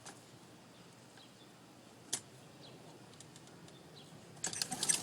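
A lawn mower's starter cord is pulled and the engine does not catch. There is a single click about two seconds in, then a quick run of rattling clicks near the end as the recoil cord is yanked.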